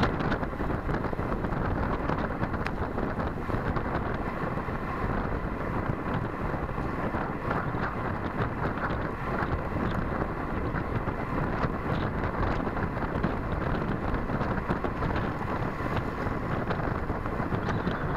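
Wind rushing over the microphone of a camera on a road bike riding at speed, a steady roar with no letup.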